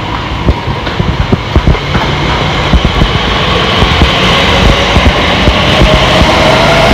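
Class 345 Aventra electric train pulling away from the platform and passing close by, with irregular wheel clatter over the track. The noise grows louder and a whine rises in pitch as the train gathers speed.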